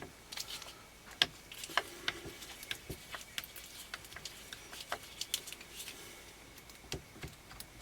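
Scattered small metallic clicks and scrapes of a screwdriver and rifle hardware being handled while a seized sling swivel screw on a Vetterli rifle is worked loose.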